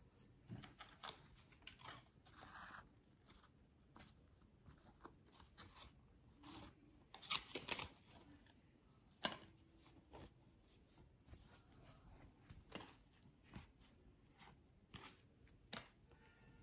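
Faint rustling and small clicks of cotton tea towels being handled and arranged on a table, in scattered short bursts, the loudest about seven seconds in.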